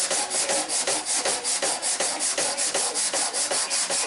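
Sandpaper rubbing over car bodywork by hand in quick, even back-and-forth strokes, about six a second.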